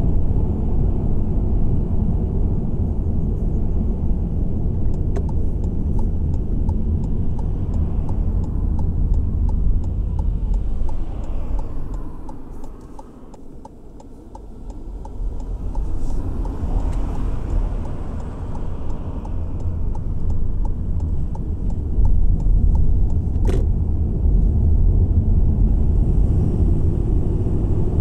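Car driving on a road: a steady low rumble of tyres and engine that fades for a couple of seconds around the middle, then builds again. A single sharp click about three quarters of the way through.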